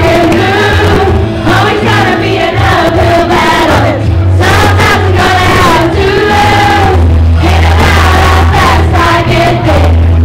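A group of girls singing along with a loud amplified backing track that has a heavy steady bass.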